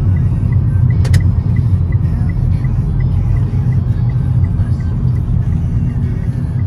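Steady low rumble of a car on the move, engine and road noise, with a sharp click about a second in.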